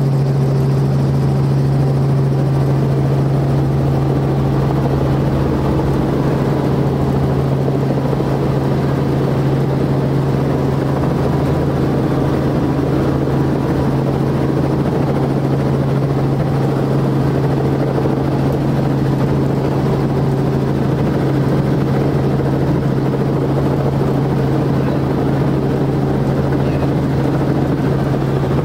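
Helicopter running steadily in flight, a loud even drone with a strong low hum, heard from inside the cabin.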